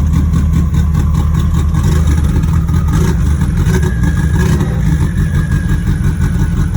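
Car engine idling steadily with a low rumble, shortly after a quick start.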